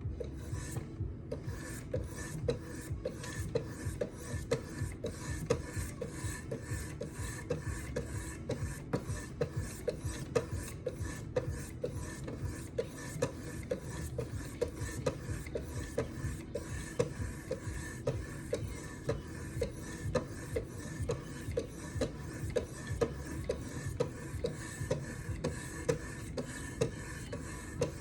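Oiled 800-grit stones of a Wicked Edge guided knife sharpener drawn along a knife's edge in quick, even rasping strokes, about two a second. These are high-grit refining passes that work each side of the edge without raising a burr.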